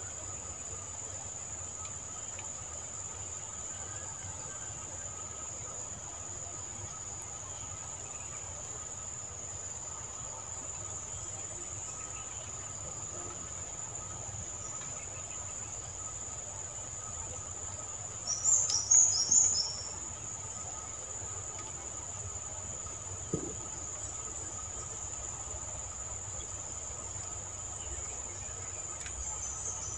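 Insects calling steadily in a high-pitched continuous trill, with a short run of four or five louder chirps a little past halfway.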